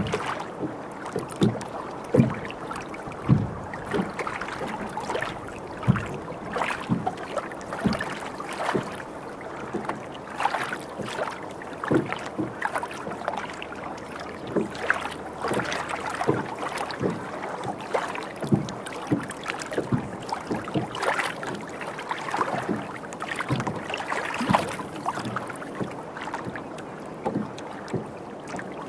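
Water slapping against the hull of a Duffy electric boat under way: irregular splashes and knocks over a steady wash of water.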